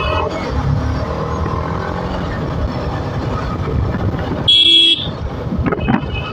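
A motorcycle riding through town traffic, the TVS Apache RR310's single-cylinder engine under wind and road noise, picking up speed and then easing off. A horn honks once, loud, for about half a second a little past the middle.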